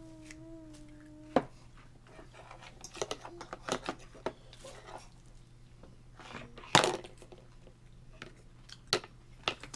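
A child hums a steady, slightly wavering note for about the first second. Then a small fork clicks, taps and scrapes against a plastic plate in scattered strokes, loudest about a second and a half in and again about two-thirds of the way through.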